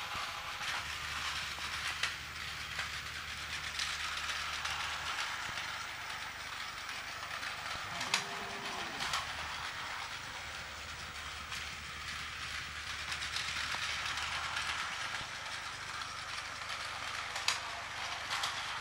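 Several battery-powered Plarail toy trains running on plastic track: a steady whirring clatter of small motors and gearboxes, with a few sharp clicks.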